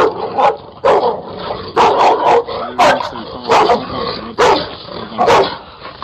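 Dogs barking in a run of about eight sharp, loud barks, under a second apart, while they attack and bite a man.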